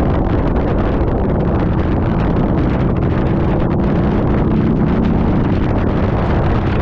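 Heavy wind rush on the microphone over the steady running of a Harley-Davidson V-Rod's liquid-cooled V-twin engine at cruising speed, riding in the rain.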